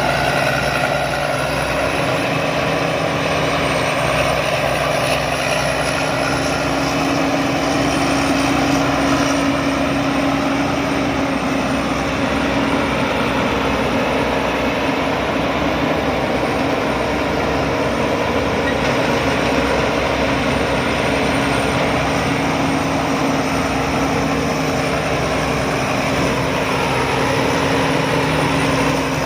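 Rice combine harvester running steadily under load, its engine giving a constant pitched hum over the threshing machinery noise.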